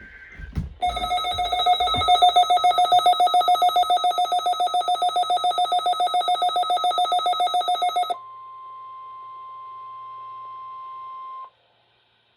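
A weather radio receiver's electronic alarm beeping in a rapid, pulsing tone for about seven seconds, then the NOAA Weather Radio 1050 Hz warning alarm tone, steady for about three seconds before it cuts off sharply: the required weekly test of the alert system. It opens with the last half-second of the warbling digital data header.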